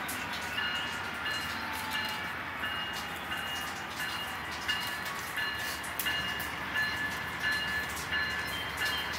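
Diesel-hauled intermodal freight train rolling across a stone-arch bridge, heard from a distance: a steady rolling noise with scattered clicks, and a short high squeak repeating about every two-thirds of a second.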